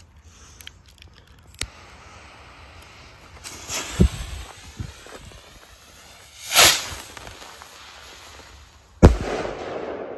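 Firework rocket with a flash-and-thunder report: its fuse hisses and spits for a few seconds, the rocket lifts off with a short loud whoosh, and about two and a half seconds later it bursts with one sharp, loud bang that echoes away.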